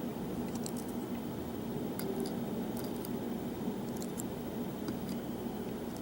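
Scattered small metallic clicks and ticks of lock pins being handled and set into a padlock core, a few a second at most, over a steady background hum.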